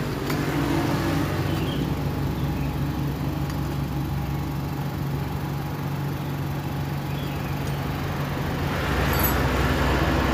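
A motor vehicle's engine running with a steady low hum, growing louder in the last couple of seconds.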